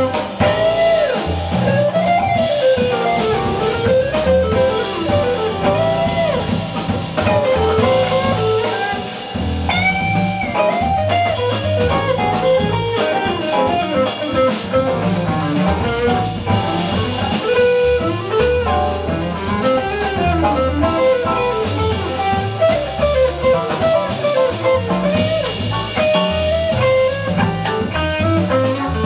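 Live jazz: a hollow-body electric guitar plays a flowing melodic line over drum kit accompaniment.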